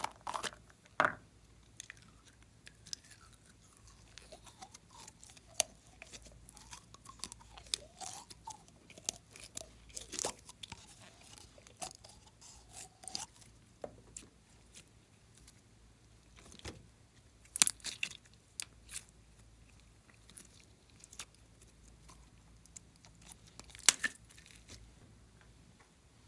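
Slime being squished and stretched by hand, giving scattered crackles and small popping clicks, with a few louder snaps about a second in, near the middle and towards the end.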